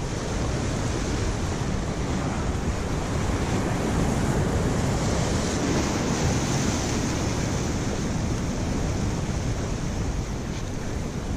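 Surf churning and breaking against the jetty rocks, a steady rushing noise, with wind buffeting the microphone.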